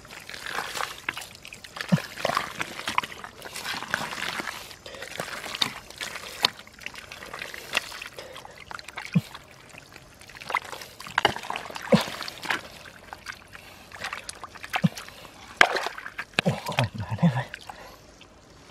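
Hands digging and groping in a water-filled mud hole: irregular squelching, sloshing and splashing of wet mud and muddy water.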